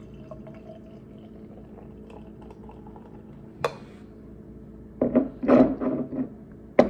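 Beer poured from a glass bottle into a glass, a faint steady pour. About three and a half seconds in there is a single clink. A cluster of knocks and a sharp knock near the end, the loudest sounds, are the bottle and glass being set down on a wooden table.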